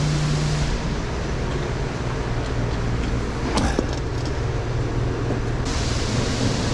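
A motor vehicle running steadily: a low, even engine drone under wide road-like noise, with one brief click about three and a half seconds in.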